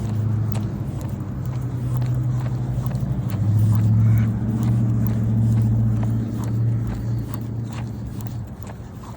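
A car engine running nearby, with a steady low hum that grows louder to a peak about four seconds in and then fades. Light ticks sound throughout.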